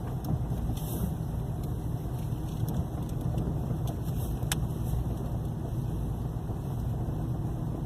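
Ford New Fiesta cabin noise while driving: a steady low rumble of engine and road, with one sharp click about four and a half seconds in.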